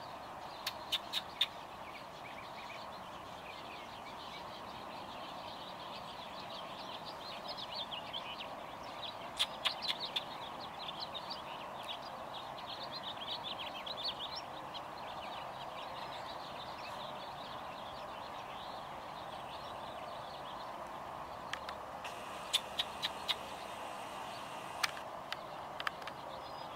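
Small birds chirping and twittering in scattered bursts over a steady background hum, with a few sharp clicks that stand out as the loudest sounds, in small groups near the start, about ten seconds in and near the end.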